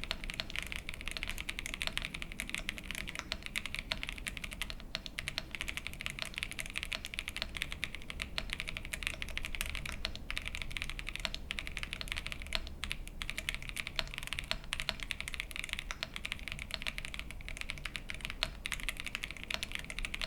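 Fast, continuous typing on the VARO V87 Pro, a gasket-mounted aluminium mechanical keyboard with factory-lubed Cidoo switches and PBT keycaps. The keystrokes come in a dense, even stream.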